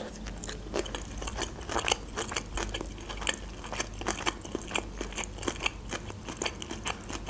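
Close-up chewing of a mouthful of sushi roll: an irregular run of small wet clicks and crunches, a few every second.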